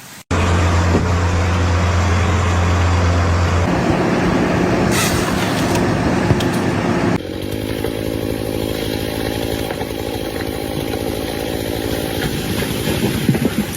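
An engine running steadily with a low hum, its sound changing abruptly twice partway through.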